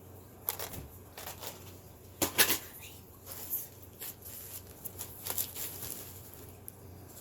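Small packaged items being handled: plastic wrapping rustling and crinkling, with scattered clicks and knocks, loudest about two and a half seconds in.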